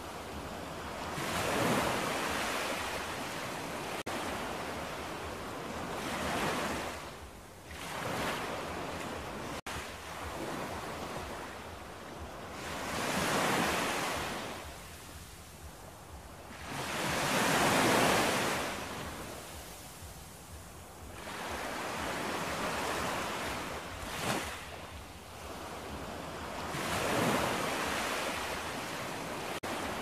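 Small ocean waves breaking on a sandy beach and washing up the shore. The surf swells and fades in repeated surges every few seconds.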